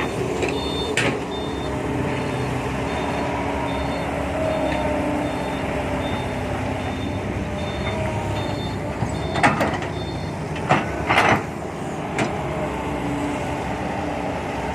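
Hydraulic excavator running under load while digging: a steady engine hum with pitch that rises and falls as the hydraulics work. Several sharp knocks come about a second in and again in a cluster near the end.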